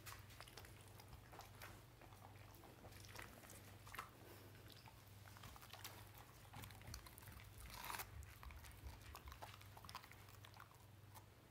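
Faint, irregular clicks and crunches of a dog chewing and gnawing on a chew toy, with slightly louder crunches about four and about eight seconds in.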